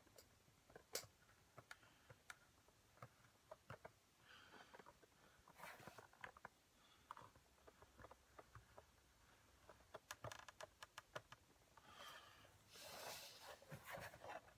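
Faint scratching and small clicks of an X-Acto-style hobby knife blade drawn through leather in short cutting strokes, with a few longer scraping passes.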